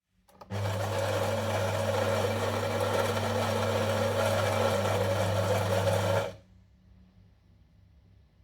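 Saeco Odea Go coffee machine running for about six seconds: a steady low hum under a grainy whirring noise, which cuts off suddenly.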